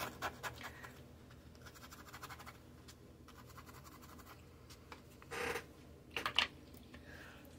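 Watercolour scrubber brush scrubbing on watercolour paper, a quick run of faint scratchy strokes, lifting and loosening the paint. Two brief louder rustles come about five and a half and six and a half seconds in.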